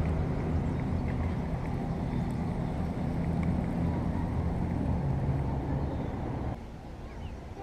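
A low, steady engine rumble with a faint hum whose pitch wavers, cutting off abruptly about six and a half seconds in.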